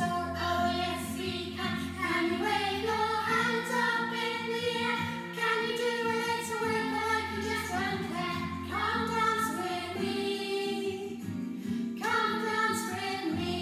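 A children's action song playing: sung melody over backing music.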